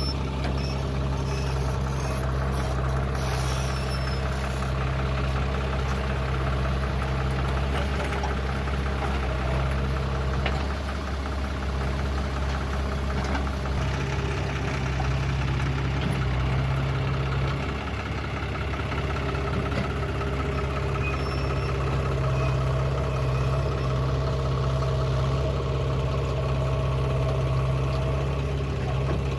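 Heavy diesel engine running steadily, with a brief slight dip in level twice.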